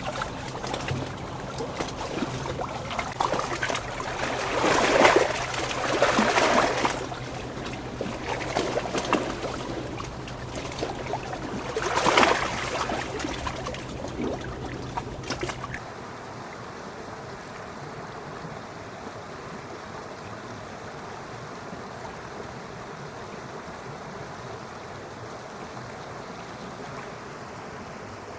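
Running stream water: uneven splashing with louder surges for about the first half, then an abrupt change to a steadier, even rush of water.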